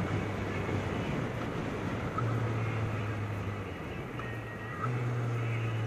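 Honda Nighthawk 650 motorcycle engine running at road speed, with wind rushing past. The engine note steps up about two seconds in, drops back, and rises again about five seconds in.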